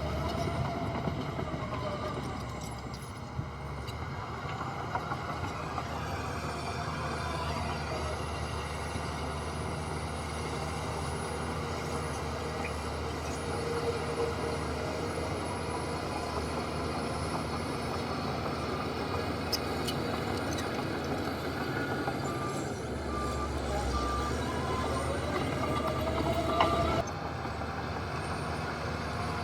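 Diesel engines of a bulldozer and dump trucks running steadily under work. Near the end a truck's reversing alarm beeps repeatedly.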